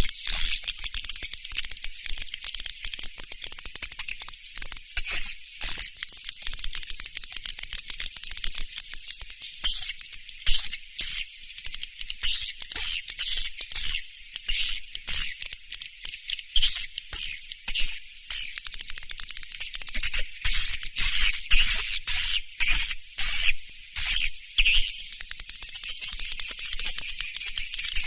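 Swiftlet lure-call recording: a dense, high-pitched chorus of rapid chattering twitters and clicks, pulsing in quick bursts, more strongly in the second half.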